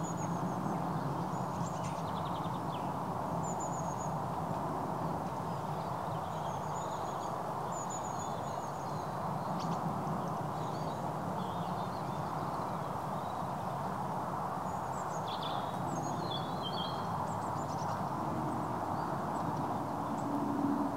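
Shallow stream running steadily over stones, a constant rushing noise, with short high bird chirps now and then.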